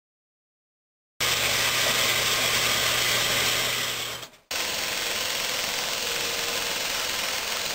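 Silent for about a second, then a power hacksaw running and cutting a flat steel bar, with a steady motor hum. It cuts off sharply about four and a half seconds in, and a different shop machine takes over, running steadily and a little quieter.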